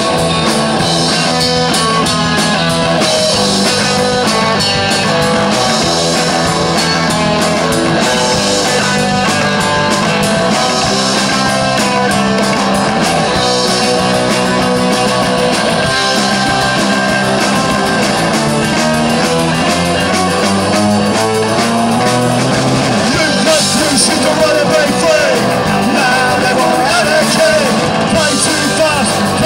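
Live punk rock band playing an instrumental stretch, with electric guitar over a full band.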